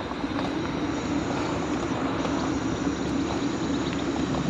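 Wind rushing over the microphone while riding a scooter, with the scooter's motor humming steadily underneath.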